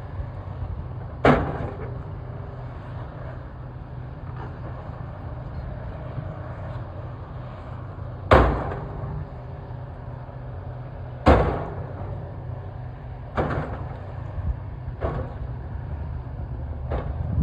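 Excavator engine running steadily while it demolishes an old bridge, with sharp bangs and knocks as the machine strikes and breaks the structure: a bang about a second in, heavy bangs around eight and eleven seconds in, then lighter knocks.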